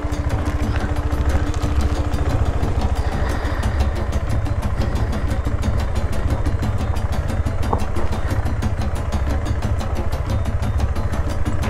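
KTM 390 Adventure's single-cylinder engine running steadily with an even pulsing beat while the bike is ridden over a rocky dirt track.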